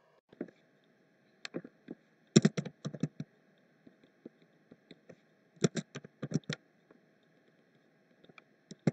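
Computer keyboard typing: several short runs of quick keystrokes with pauses between them, the busiest just under a second long, over a faint steady hum.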